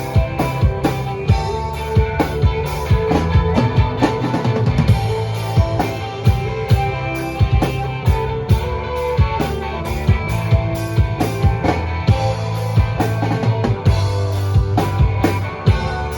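Band playing an instrumental passage between verses: a drum kit keeps a steady beat with regular cymbal strokes over a bass line and guitar.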